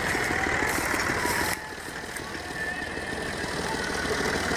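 Tractor diesel engine running steadily with a fast, even chugging beat. The sound dips a little about a third of the way in and swells back near the end.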